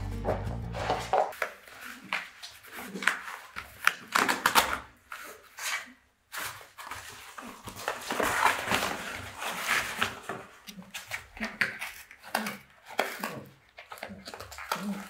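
A Staffordshire bull terrier puppy chewing and tearing at a cardboard box, with irregular crackling, scraping and rustling of cardboard and short pauses between bouts.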